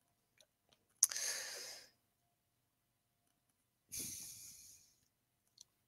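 Two breaths into a close headset microphone: a sharp one about a second in and a longer, fading one like a sigh about four seconds in, with a few faint clicks between.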